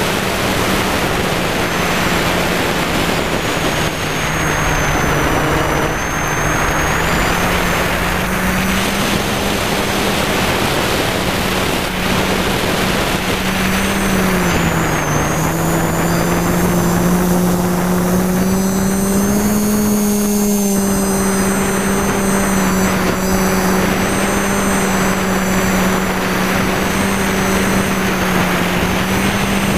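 Electric motors and propellers of an FPV multirotor drone humming steadily, heard from a camera on board with wind noise over them. About halfway through, the pitch dips briefly and then settles back up as the throttle changes.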